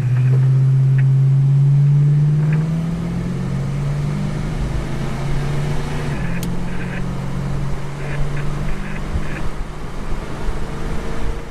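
Vehicle engine pulling away and accelerating, heard from inside the cab: its note rises over the first couple of seconds and then settles into steady cruising.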